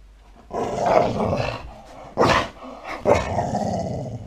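A dog growling and grumbling with a tennis ball held in its mouth: one long rough stretch starting about half a second in, then several shorter bursts.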